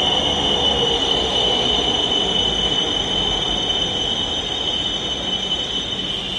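Dhaka Metro Rail train slowing as it pulls in alongside the platform: a low rumble of the cars under a high steady squeal from the wheels and brakes. The squeal dies away near the end as the train slows.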